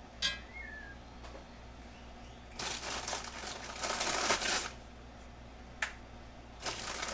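A plastic food bag crinkling as it is handled, in two spells of a couple of seconds each, the first about two and a half seconds in and the second near the end. A short sharp clink comes just after the start.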